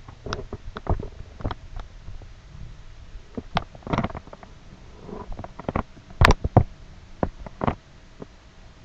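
A series of irregular sharp knocks and clicks, loudest in a quick cluster about six seconds in, over a low steady hum.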